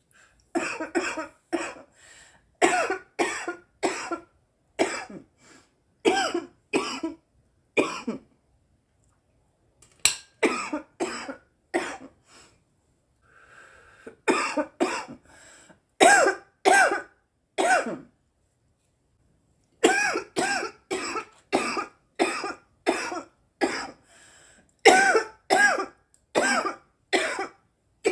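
A girl coughing over and over, in fits of several coughs each with short pauses between the fits.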